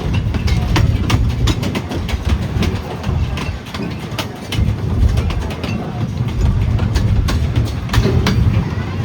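Cedar Point and Lake Erie Railroad narrow-gauge train rolling along the track: a steady low rumble with frequent irregular clicks and clacks from the wheels on the rails.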